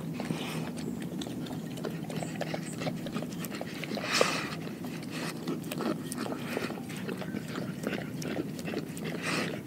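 A Doberman licking and eating raw Cornish hen from a glass bowl: many small wet clicks and smacks of tongue and jaws. A louder breathy snuffle comes about four seconds in, and another near the end.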